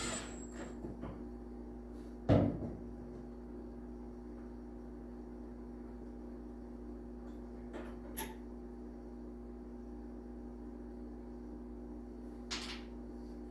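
Hand tools knocking and clicking against the snowblower's metal chute while a bolt is loosened: one sharp knock about two seconds in, then a few faint clicks, over a steady low hum.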